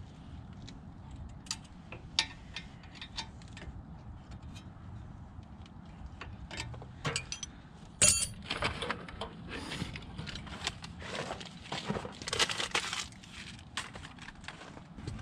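Scattered small metallic clicks and clinks with rustling, from tools and parts being handled. There is a loud sharp clack about eight seconds in, followed by a busier stretch of scraping and rustling.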